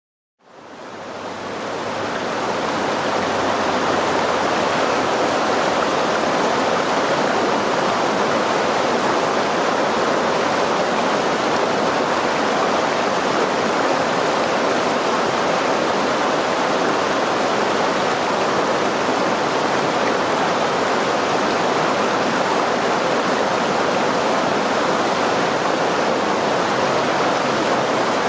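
River stream flowing over rocks: a steady rushing of water that fades in from silence over the first few seconds.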